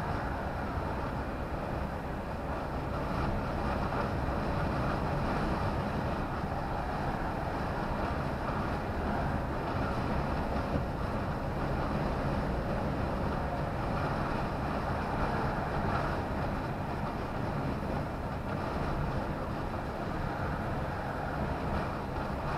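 Steady engine and tyre noise heard inside a vehicle's cab cruising at motorway speed, a low rumble with an even road hiss and no sudden changes.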